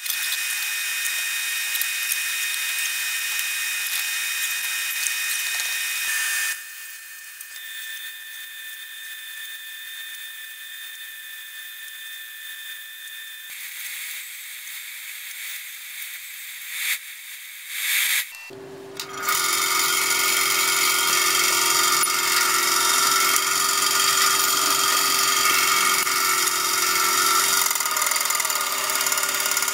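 Restored AEG drill press switched on about two-thirds of the way in, running steadily with a hum and a high whine as its bit drills into a flat steel bar. Before that, a steady, high-pitched machine noise drops away about six seconds in, leaving a quieter stretch with a few short bursts just before the drill press starts.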